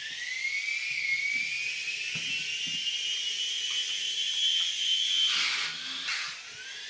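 Small electric motor of an Air Hogs Moto Frenzy RC motorbike whining as it spins up, rising in pitch and then holding steady. A short rushing noise comes about five seconds in, and the whine then climbs again.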